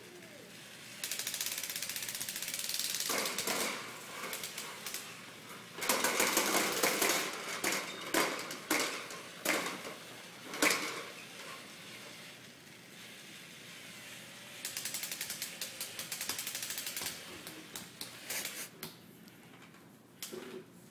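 Girasol woven baby wrap rustling and swishing as the long fabric is flipped over the shoulders, pulled through the hands and crossed over the chest, in three stretches of rustling with sharper snaps in the middle one.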